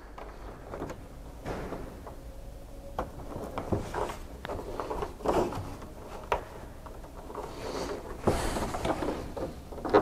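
Hands fastening power cables into the clamps of an LED ceiling panel and handling its metal frame: scattered small clicks and light knocks, with a longer scraping rustle about eight seconds in.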